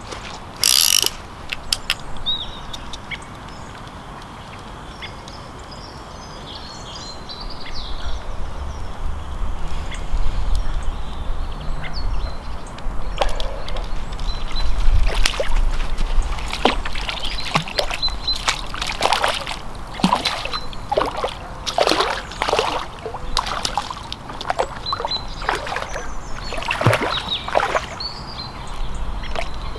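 Irregular splashes and knocks as balls of groundbait are thrown into the pond and land in the water, over a low rumble of wind on the microphone that sets in about eight seconds in.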